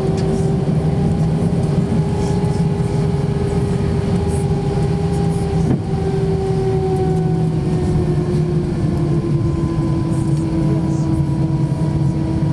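Airbus A319's CFM56 turbofan engines at taxi power, heard from inside the cabin: a steady hum with a droning tone that drifts slightly in pitch, settling lower in the second half. A brief click about halfway through.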